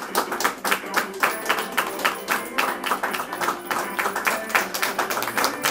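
A small group clapping steadily in rhythm, about four to five claps a second, over guitar music.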